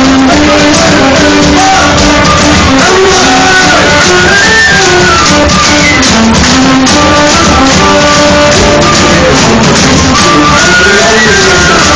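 Irish folk-metal band playing live at full volume, heard from within the crowd, a stepwise melody line riding over the dense band sound.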